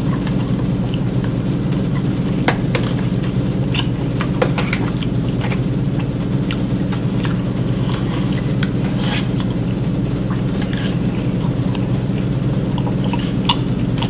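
Eating sounds: chewing and mouth noises, with a fork scraping and clicking in an aluminium foil pan as scattered short ticks, over a steady low background hum.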